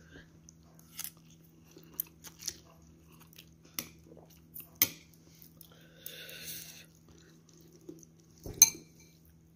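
Metal spoon and chopsticks clicking against a bowl of noodle soup while eating, with chewing and a short slurp about six seconds in; the loudest clink comes near the end.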